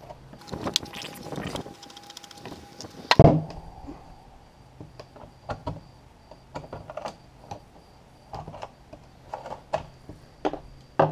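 Scraping and picking with a hand tool at old plumber's putty on a plastic fuel tank: a burst of scratching, one sharp knock about three seconds in, then scattered short scrapes and clicks. A faint steady hum and a faint high whine sit underneath.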